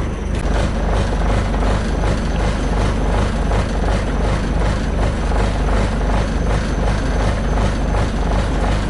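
Sailboat's inboard engine running steadily with a regular pulsing thrum.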